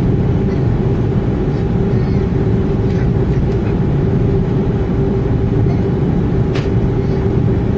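Cabin noise inside an Airbus A320 on the ground: the jet engines run at idle with a steady hum over a loud, even low rumble.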